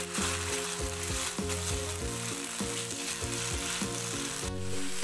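Wet ground spice paste sizzling in a non-stick wok without oil as its water cooks off, while a wooden spatula stirs and scrapes it around the pan. A single sharp knock comes near the end.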